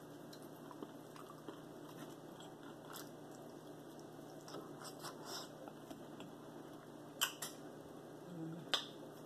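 Close-up eating sounds of barbecued meat being pulled apart by hand and chewed, with faint wet mouth noises and scattered small clicks. Two sharper clicks come near the end, with a short low hum just before the second.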